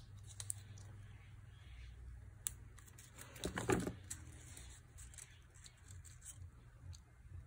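Faint rustling and light taps of cardstock poinsettia petals being handled and pressed together onto a glue dot, over a low steady hum. A brief murmured voice comes a little over three seconds in.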